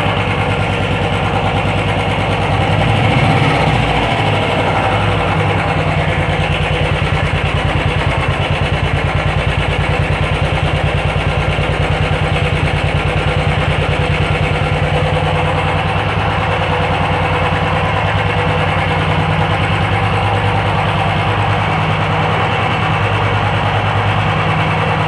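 Royal Enfield Thunderbird 350's single-cylinder engine idling with its steady, even thump, briefly louder about three seconds in.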